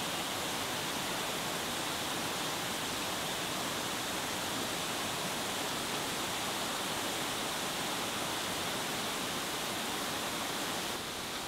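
Steady rushing of water in a koi pond, an even hiss without breaks that drops a little just before the end.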